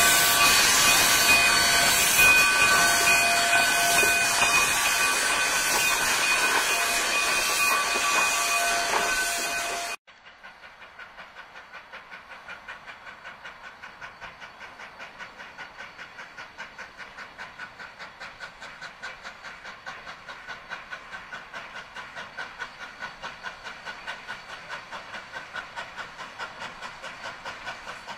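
K-36 narrow-gauge 2-8-2 steam locomotive venting steam: a loud hiss carrying several steady whistling tones. About ten seconds in the sound drops abruptly to a quieter, regular chuffing of about four beats a second as the locomotive works towards the camera.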